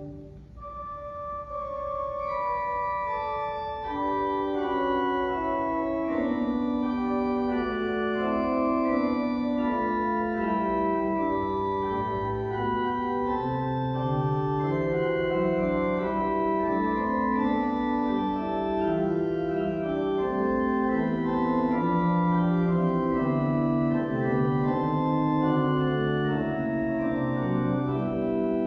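Church organ played in slow sustained chords with moving inner and bass lines. A phrase ends right at the start, and the organ comes back in softly, swelling over the first couple of seconds.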